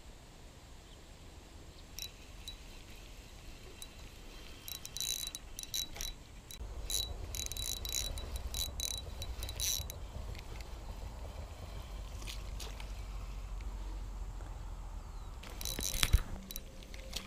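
Fishing reel being handled and cranked: irregular bursts of light metallic clicking, with a louder burst near the end. A low rumble on the microphone runs under the middle part.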